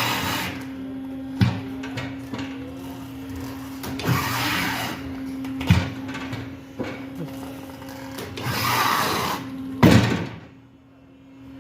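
Tyre changer machine working a new tyre onto a wheel rim: a steady motor hum with several sharp knocks and two longer rushing swells of noise. About ten seconds in, the hum and noise drop away before the hum returns.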